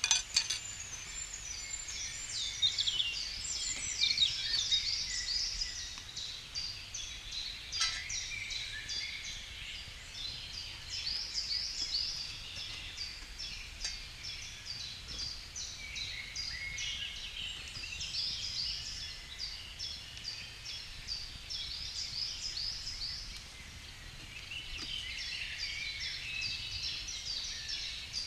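Several songbirds singing at once, a dense overlapping chorus of quick chirps and trills that keeps going throughout. A sharp click sounds about eight seconds in.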